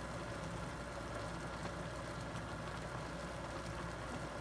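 A pot of instant ramen noodles simmering in broth on an electric cooktop: a steady hiss of bubbling with a low, even hum underneath.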